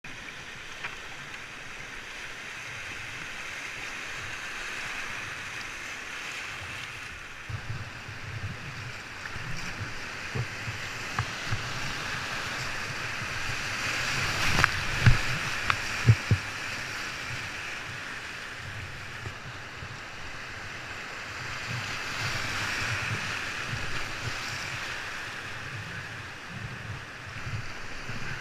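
Rushing whitewater of a creek rapid heard from a kayak in it, with wind buffeting the microphone. The water grows louder about halfway through, where a couple of sharp thumps are the loudest sounds.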